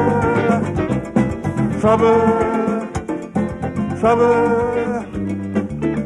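Live calypso band playing, with a pitched phrase that swoops up at its start and repeats about every two seconds over a steady bass and rhythm.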